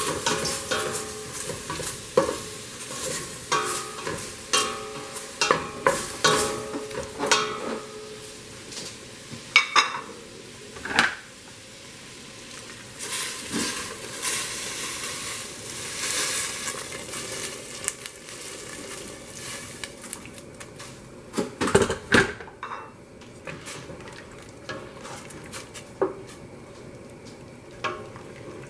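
Beef cubes sizzling in oil in a stainless steel pot while a wooden spoon stirs and scrapes them, knocking against the pot. About halfway through, boiling water is poured in with a hissing rush. A loud knock follows, then quieter stirring in the liquid.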